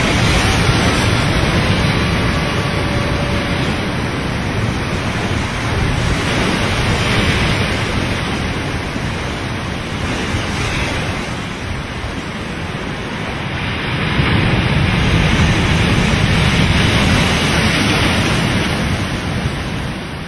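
Steady rush and roar of a barreling ocean wave breaking around a surfboard, heard close up with water rushing over the board-mounted camera. The noise swells and eases a few times, loudest about two-thirds of the way in, and fades out at the end.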